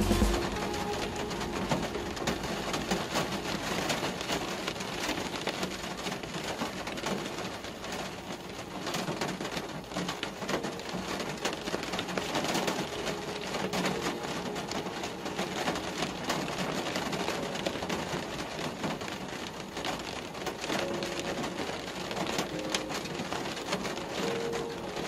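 Rain falling on a car, heard from inside: a steady hiss thick with small drop hits.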